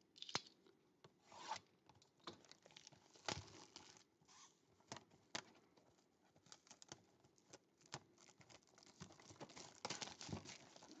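Faint tearing and crinkling of clear plastic shrink-wrap being peeled off a trading-card box, with scattered small clicks and rustles as the box is handled.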